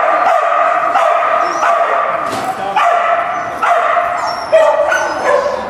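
A dog barking repeatedly in high, drawn-out barks, about one a second.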